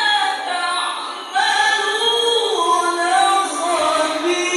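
A male qori reciting the Quran in the melodic tilawah style, sustaining long ornamented notes that bend in pitch. The voice breaks briefly about a second in and then begins a new phrase.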